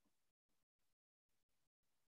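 Near silence: a muted or noise-gated call microphone.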